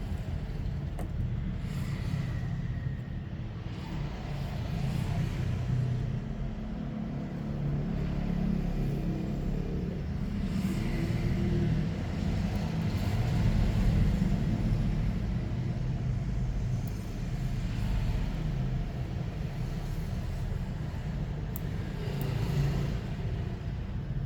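Steady low rumble whose loudness swells and fades slowly.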